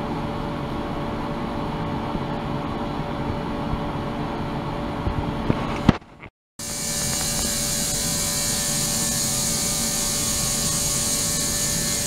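Ultrasonic cleaning tank running: a steady hum with several fixed tones under a hiss. A few clicks come just before halfway, the sound cuts out for about half a second, and it then resumes brighter and hissier.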